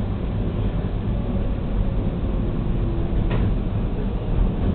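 TTC subway train running on open track with a steady low rumble. A faint motor hum comes in about two seconds in, and there is a single sharp click just after three seconds.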